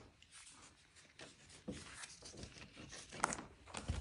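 Soft crinkling and rustling of a clear plastic packaging bag being handled, in short irregular bursts that begin about halfway through, with a couple of light ticks.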